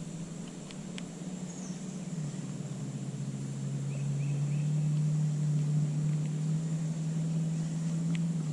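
A steady low engine hum that drops in pitch about two seconds in and grows louder toward the middle, with a few faint clicks.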